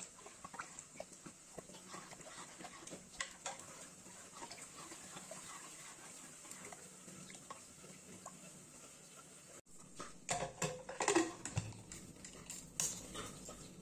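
Metal spoon stirring and scraping through wet spinach curry in an aluminium pressure cooker pot, with soft squelches and small clicks against the pot. About ten seconds in comes a louder run of metallic clatter and knocks as the pressure cooker lid is put on.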